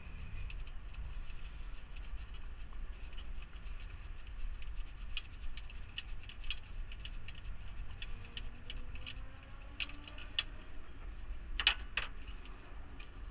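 Light metallic clicks and taps of a 10 mm wrench working on bolts, several a second and uneven, with two louder clinks near the end, over a low background rumble.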